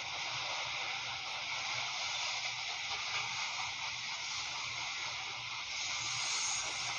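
Freight train rolling past: a steady hiss of wheels on rail with a faint low pulsing rumble.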